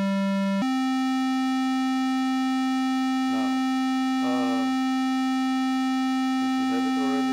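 Synthesizer oscillator of a 1V/Oct The Centre module playing a steady, buzzy sustained tone. It steps up in pitch about half a second in as its octave is changed by a knob, holds, and drops back down at the very end. Short warbling blips sound a few times in the middle.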